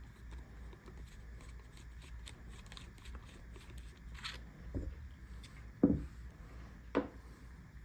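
Revolver being handled during disassembly: light clicks and taps, then four sharper knocks in the second half, the loudest a little before the end.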